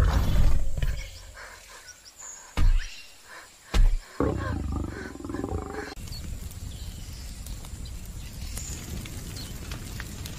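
Tyrannosaur growling with a deep rumble that fades over the first second. Two heavy thumps follow, then another growl that stops about six seconds in.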